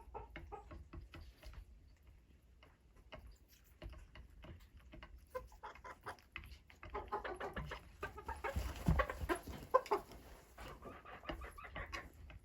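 Domestic chickens clucking, mixed with many short clicks and scratchy sounds that get busier from about seven to eleven seconds in.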